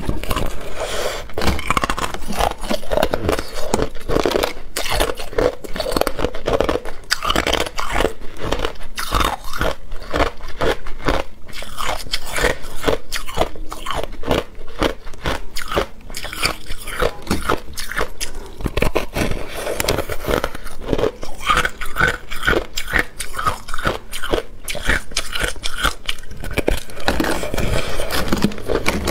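A person biting and chewing a frozen block of crushed ice: loud, rapid, crackly crunches follow one another densely with no real pause.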